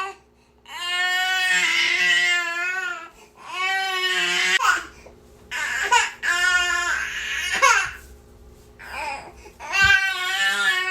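Infant crying: a run of about four loud, pitched wails, each lasting one to two and a half seconds, with short breaths in between.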